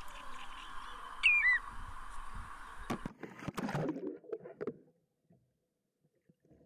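A bird calls twice over a steady outdoor background, two short falling whistles. About three seconds in, the sound switches to muffled underwater splashing and knocking as the camera goes under the water, then fades to almost nothing.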